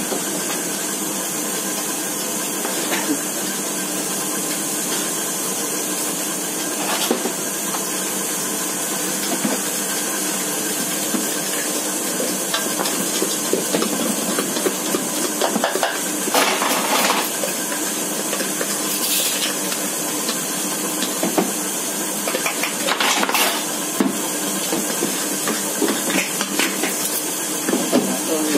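A metal spoon and batter scoop scraping and clinking against a stainless steel pot as cake batter is stirred and scooped, in scattered short strokes. Under them runs a steady hiss.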